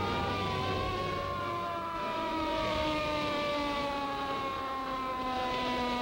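Fire engine's siren winding down, its pitch sliding slowly lower, over the low rumble of the truck.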